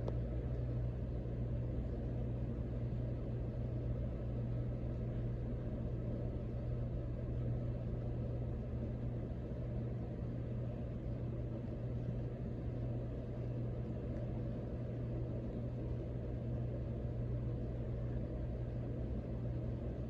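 Triplicity three-blade ceiling fan running steadily at speed: an even low motor hum under a soft whoosh of air from the blades.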